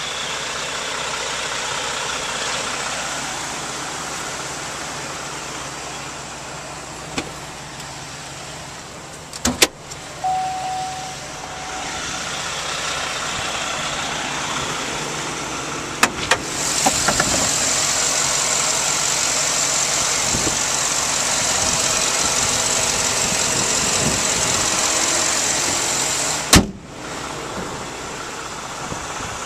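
Steady motor-vehicle noise, broken by a few sharp knocks: one about a third of the way in, one just past halfway and one near the end. A high hiss comes in just past halfway and cuts off suddenly with the last knock.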